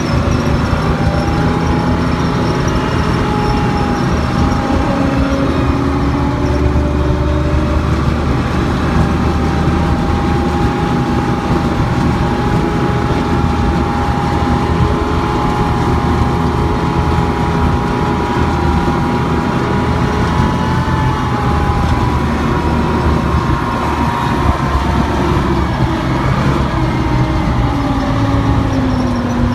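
Engine and running gear of an armoured military vehicle, heard from on board as it drives across grass: a loud, steady drone whose pitch drifts slowly up and down.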